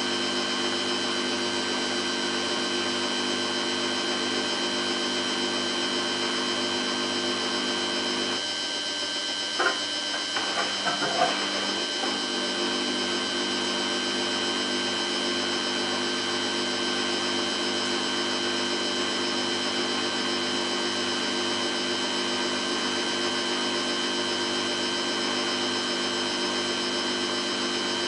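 Samsung WF8804RPA washing machine in its 450 rpm intermediate spin after the prewash: the drum spinning at a steady speed, the motor giving a steady whine of several fixed tones. A few short clicks come about ten seconds in.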